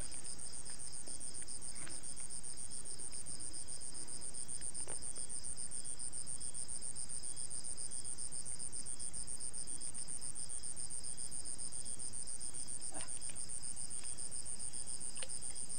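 Steady chorus of night insects, a continuous high-pitched trill, with a fainter insect chirping in an even beat beneath it and a few faint clicks.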